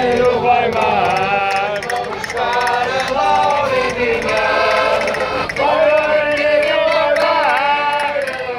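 A group of men singing a folk song together in unison, loudly and a little raggedly, to a street accordion accompaniment.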